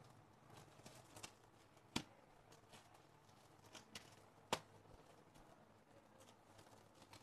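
Faint handling sounds of smartphones being picked up and turned over on bubble wrap: light rustles and clicks, with two sharper taps about two seconds and four and a half seconds in.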